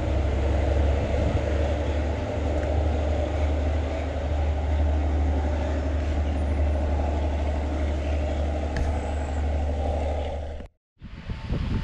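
A large diesel engine idling: a steady, deep, even drone that does not rise or fall. It cuts off abruptly near the end, and gusts of wind on the microphone follow.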